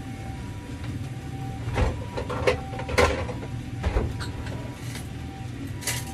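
A few sharp knocks and clunks of kitchen utensils being handled and set down, over a steady low hum.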